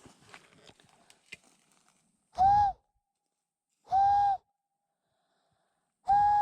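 A hand-held whistle blown three times at one steady mid pitch: two short blasts about a second and a half apart, then a longer blast of about a second. Each blast starts and stops sharply, with a slight rise at the start and a drop at the end.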